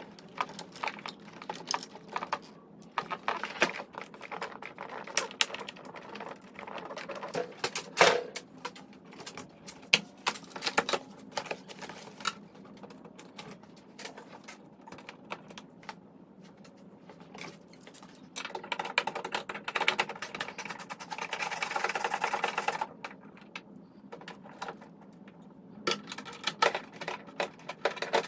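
Quick, dense clicking and clatter of hand tools and plastic trim parts as a 2007 Chevy Suburban's front door panel and door handle are taken apart, with a few sharper knocks. About two-thirds of the way in comes a steadier buzzing rattle lasting a few seconds.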